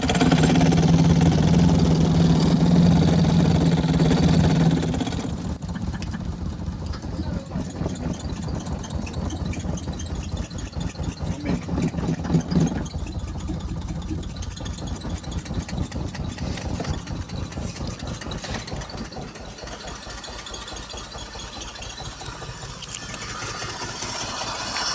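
BMW engine running rough with a misfire. A loud steady drone for about the first five seconds gives way to an uneven, rapid pulsing that grows quieter toward the end. The owner puts the misfire down to spark plug and ignition coil problems.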